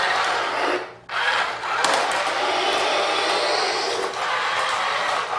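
Remote-control toy jet transporter running: a loud, steady whirring whoosh that cuts out briefly about a second in and then resumes, with a faint rising whine near the end.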